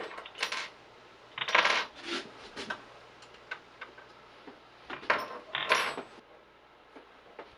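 Small steel bolts and washers clinking against each other and against hard surfaces as they are handled, in several short clusters of sharp metallic clicks.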